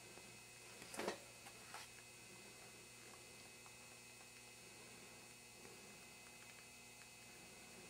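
Near silence: a steady faint hum of room tone, with a brief soft noise about a second in and a smaller one shortly after.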